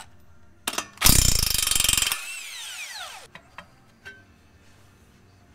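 Cordless impact wrench hammering for about a second on a flex-plate-to-crankshaft bolt, then its motor spinning down with a falling whine. A couple of light metal clicks follow as the stock flex plate is handled off the crank.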